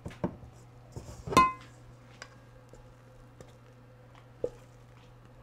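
Silicone spatula scraping and knocking against a stainless steel mixing bowl while batter is scooped out. One knock about a second and a half in sets the metal bowl ringing, and a couple of lighter knocks follow later.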